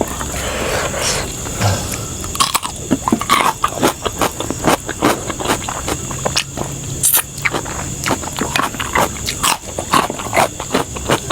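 A person eating close to the microphone: chewing and biting, with many quick, irregular crunches and mouth clicks.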